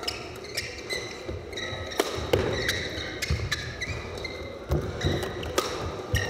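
Badminton doubles rally: a string of sharp racket hits on the shuttlecock, one every second or so. Players' shoes squeak in short chirps and their feet thud on the court floor.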